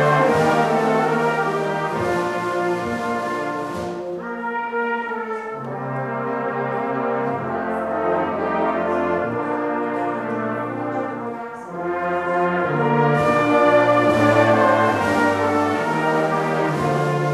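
Brass band playing a slow piece in sustained chords, dropping to a softer passage about four seconds in and swelling again after about twelve seconds.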